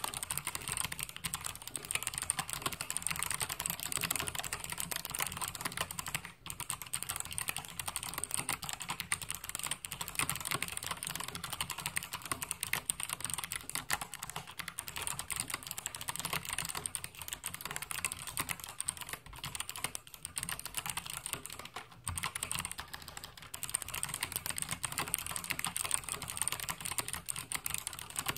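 Fast, continuous typing on a mechanical keyboard with Kailh BOX White clicky switches, each keystroke giving a crisp click, with brief pauses about six and twenty-two seconds in.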